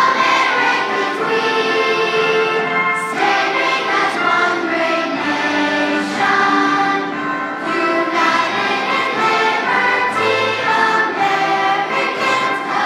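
A children's choir singing a patriotic song in unison over musical accompaniment, with sustained sung notes and lower instrumental tones underneath.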